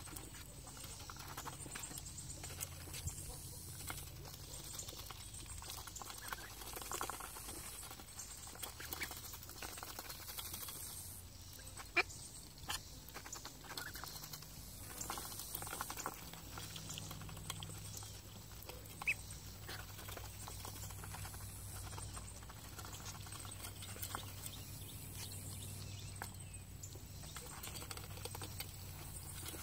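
Domestic ducks feeding from a bowl of pelleted feed: their bills dabble and click in the pellets and knock against the bowl. The result is an irregular patter of small clicks, with a louder knock about twelve seconds in and another about seven seconds later.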